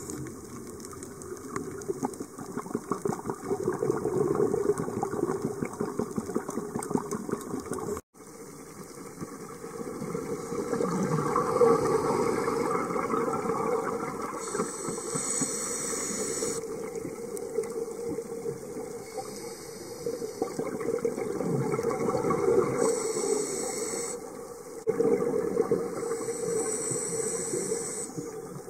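Underwater sound of a scuba diver breathing through a regulator: continuous bubbling, crackling exhalations, with a hiss of inhalation three times.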